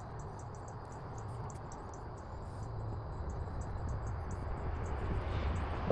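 Outdoor background: rapid, high-pitched chirping repeating several times a second over a steady low rumble that grows a little louder in the second half.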